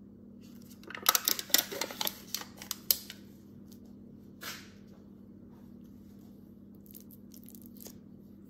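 A plastic cottage cheese tub being opened, its lid pulled off with a crackling burst of sharp clicks and tearing lasting about two seconds. A short swish follows, then a few faint light clicks near the end.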